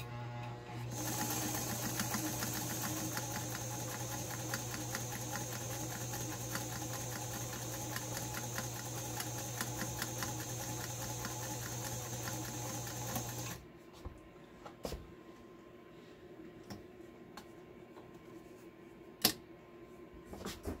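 White 764 sewing machine sewing a medium zigzag stitch: motor hum with a fast, even clatter of needle strokes, running steadily for about thirteen seconds before it stops abruptly. A few light clicks follow, then one sharp click near the end.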